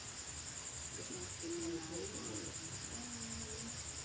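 Insects chirping steadily in a high, even pulsing trill.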